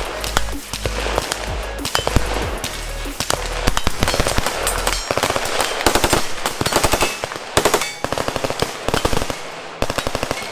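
Bursts of fully automatic gunfire, long strings of rapid shots, densest in the second half. Background music runs underneath at first.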